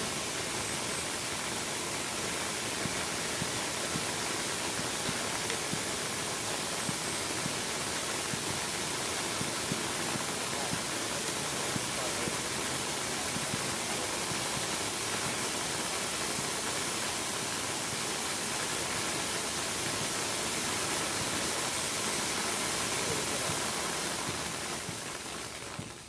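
Silver blink fireworks waterfall, about 7 m long, hissing steadily as its curtain of sparks pours down, then fading near the end as it burns out.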